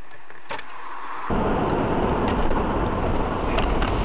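Steady rumble of a car driving, heard from inside the cabin through a dashboard camera. It starts abruptly about a second in, after a quieter stretch with a few faint clicks.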